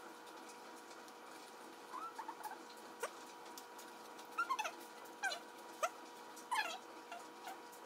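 A small animal's short, high squeaking calls, each falling in pitch, coming a few at a time from about two seconds in, over a faint steady hum.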